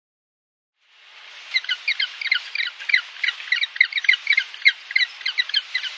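Penguins calling: many short, high squawks in quick succession, several a second, over a steady background hiss. The sound fades in after about a second of silence.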